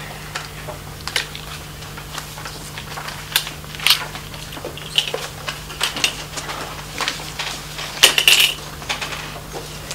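Sheets of paper being handled and passed around a table: scattered rustles, clicks and light knocks, loudest in a burst about eight seconds in, over a steady low electrical hum.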